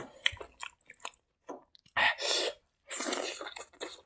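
Close-miked wet chewing and mouth sounds of a person eating, with scattered small clicks and two louder, longer hissing sounds about two and three seconds in.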